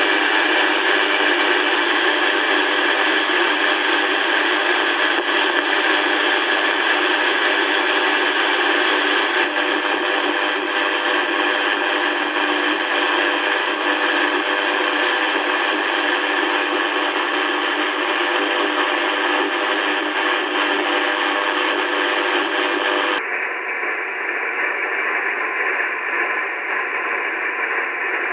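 HF radio receiver's audio filled with constant interference noise: a steady hiss laced with many faint steady tones, blamed on a switching-mode power supply and covering the whole HF band. About 23 seconds in the sound abruptly becomes duller as its upper range is cut off.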